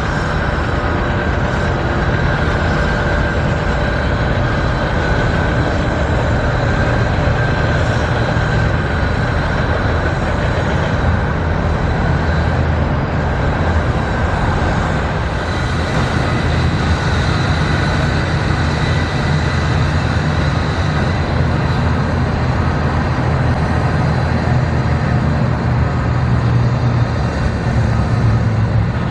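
Steady low rumble of heavy diesel engines with a faint, thin steady whine above it.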